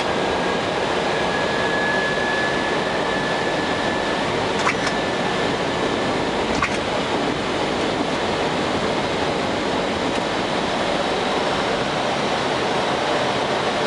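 Steady rushing noise on an Airbus A320-200 flight deck during approach: airflow and ventilation hiss at a constant level. A faint high steady tone runs through the first half, and two short clicks come about five and six and a half seconds in.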